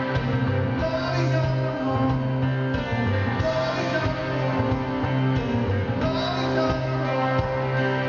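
Rock band playing live, with a man singing lead over sustained chords and drums.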